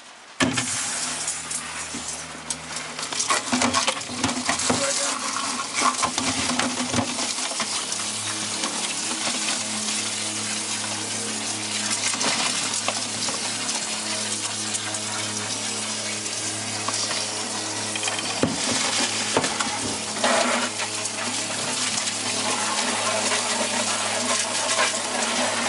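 Water splashing and running as shrimp are sorted by hand and poured with water from one plastic bucket into another, over a steady low hum.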